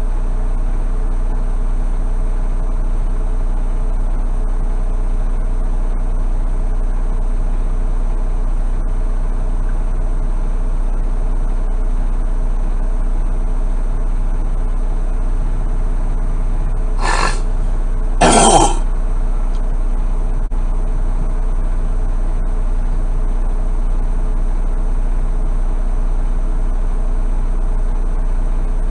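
Heavy truck's diesel engine idling steadily, heard from inside the cab. About two-thirds of the way through, a person clears their throat twice in quick succession, the second time louder.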